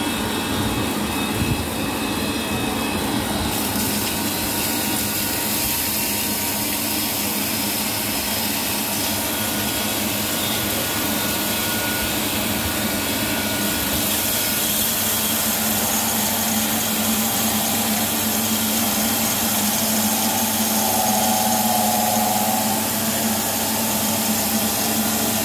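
A machine running steadily: a continuous whirring noise over a steady low hum, like an electric motor and fan.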